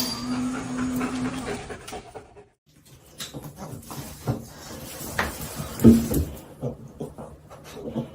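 A dog's held vocal note for about a second and a half. After a short break it gives way to scattered knocks and scuffling clicks, with a brief squeak-like note about six seconds in.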